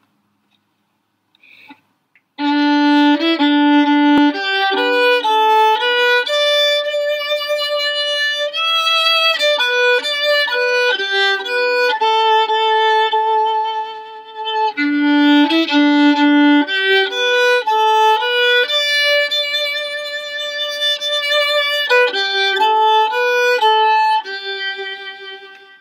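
Solo violin playing the tune of a May Faire song, one sustained note at a time, starting about two seconds in; the opening phrase comes round again about halfway through.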